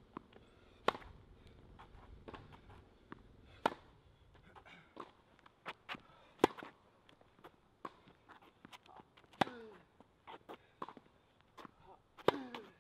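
Tennis balls struck by rackets in a rally: a sharp, loud hit about every three seconds, with quieter hits and ball bounces in between.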